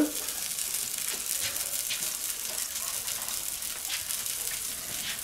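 Steady sizzling from beneath a rotisserie chicken in a hot charcoal kettle grill, with a few faint crackles: butter and meat juices frying in the drip pan over the glowing coals.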